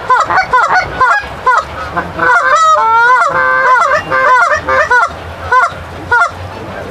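Geese honking: a rapid run of short, separate honks, with several calls overlapping in the middle.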